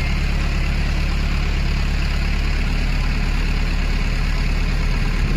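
Pickup truck engine running steadily, a low, even drone.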